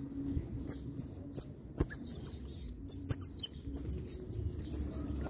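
Baby otters giving a chorus of shrill, high-pitched chirps in quick succession, many short calls sliding up and down, thickest about two seconds in. They are hungry begging calls for food.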